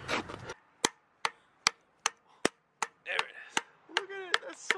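Hammer striking a drift driven into a crankshaft's pilot bearing bore, about ten sharp blows at roughly two and a half a second. The bore is packed with wet paper towel, so each blow builds pressure behind the old pilot bearing to push it out.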